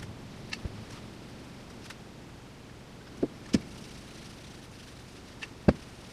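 A handful of short, light knocks and taps from handling the wooden rifle stock while it is oiled and buffed. There are two pairs of knocks, and the loudest comes near the end.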